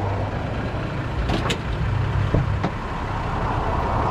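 A motor vehicle running: a steady low engine hum with road noise, broken by a few short clicks and knocks.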